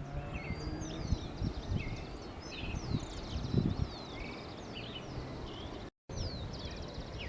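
Several small birds chirping and trilling together, with quick whistled slides and buzzy trills, over a low rumble of wind noise with a few soft thumps. The sound drops out for a moment near the end.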